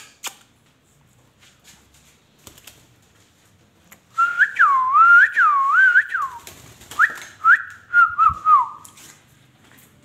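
Indian ringneck parakeet whistling a tune of swooping up-and-down notes, starting about four seconds in and lasting about four and a half seconds, ending in a short wavering trill that falls away.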